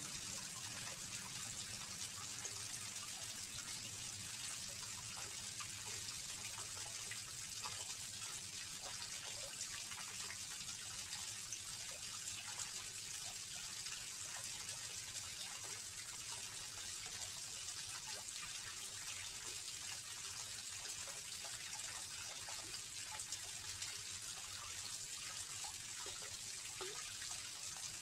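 Small garden fish-pond waterfall: water spilling over stacked rocks into the pond with a steady, even splashing.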